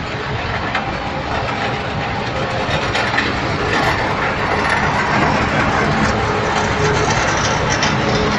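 A construction-waste crushing plant running: machinery rumbling steadily under a continuous rattle and clatter of broken rubble, growing slightly louder a few seconds in.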